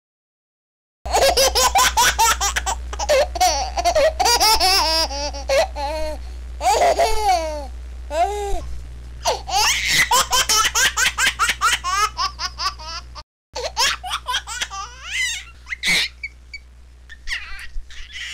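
A baby laughing in long runs of giggles, starting about a second in, with a brief break about two-thirds through and trailing off near the end, over a steady low hum.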